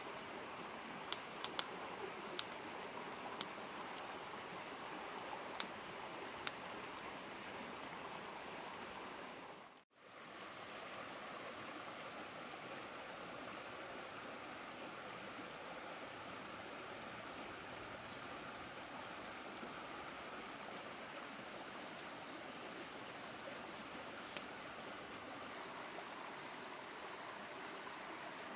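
Fast-flowing stream rushing over rocks, a steady wash of water noise. In the first few seconds a wood campfire crackles with several sharp pops. The sound drops out for a moment about ten seconds in.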